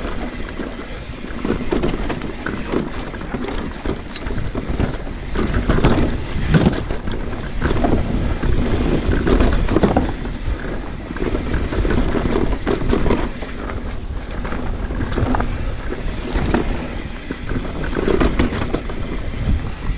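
Mountain bike descending a rough freeride trail: tyres rumbling over dirt and rocks with a constant clatter of knocks and rattles from the bike, under heavy wind noise on the microphone.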